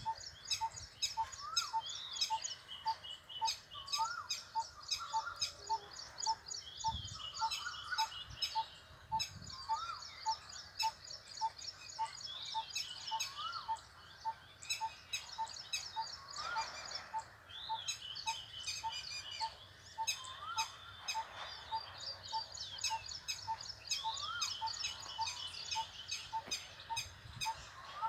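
Parrots calling in a dense run of rapid, high chirps. Through it runs a steady pip about twice a second, and a short rising call repeats every couple of seconds.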